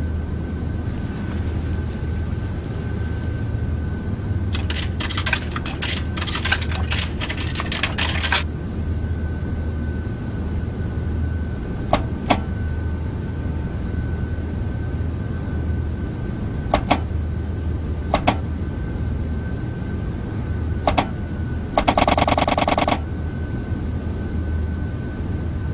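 Foley vending-machine sounds over a steady low machine hum with a faint high whine. A few seconds in comes a clattering run of clicks lasting about four seconds. Then single sharp button clicks follow at intervals, and near the end a buzzing tone lasts about a second.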